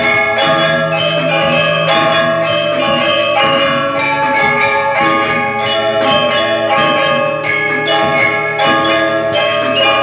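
Music played on ringing, bell-like tuned instruments: many notes are struck in quick succession and left to ring on together, with the pitches changing as the tune moves along.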